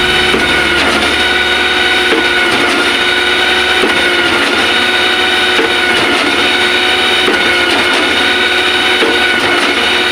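Concrete pump running steadily under load: a constant high mechanical whine of several held tones over a low rumble, with occasional short knocks.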